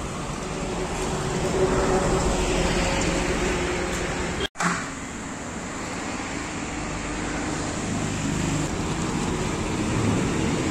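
Steady motor vehicle engine and road traffic noise, broken by a sudden brief dropout about four and a half seconds in.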